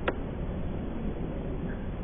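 A single sharp click just after the start, over a steady low rumble of outdoor background noise.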